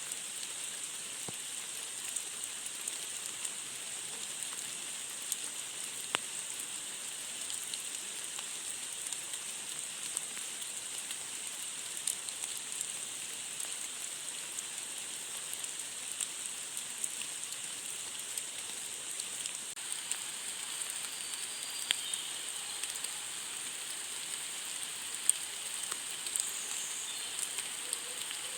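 Steady rain falling, an even hiss with scattered sharper ticks of individual drops striking a surface.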